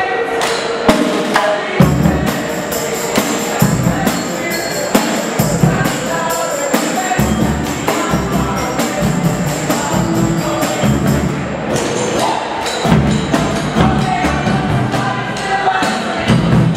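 Live band music with a steady percussion beat: sousaphone bass notes, strummed acoustic guitar and drums.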